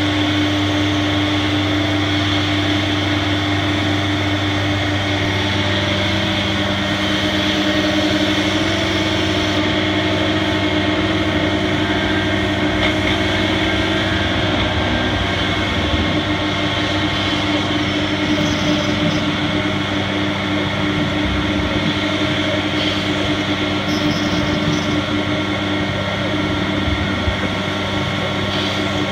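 AXYZ 4008 CNC router, with a 10 HP HSD spindle, routing a sheet on its vacuum table: a steady mechanical drone with several held tones as the bit cuts through the material.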